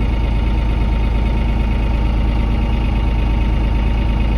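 Tractor engine running steadily at low speed, slowly towing a well-pump line out of the well, heard from the driver's seat.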